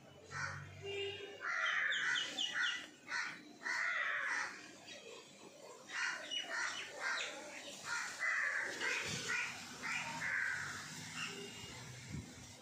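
Crows cawing, harsh calls repeated many times, some in quick runs.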